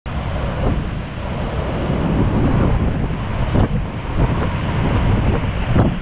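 Typhoon wind buffeting the microphone: a loud, heavy rumble that swells in gusts, with sharper blasts about three and a half seconds in and near the end.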